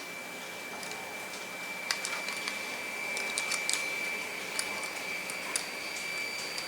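Small clicks and taps as a toolless hard drive bracket is handled and its pins are pushed into the drive's screw holes, over a steady high-pitched whine.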